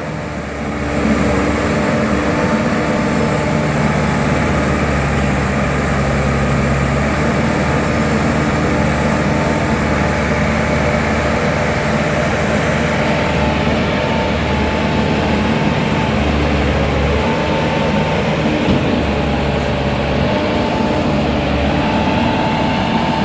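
ACE AX124 backhoe loader's diesel engine running steadily under load, with a higher whining tone that comes and goes over the low hum.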